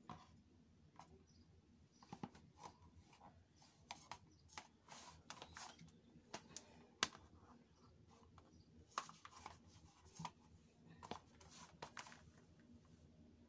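Faint, scattered clicks and soft slaps of plastic jelly flats as they dangle from the toes and knock against the heels and the wooden floor, the sharpest tap about seven seconds in.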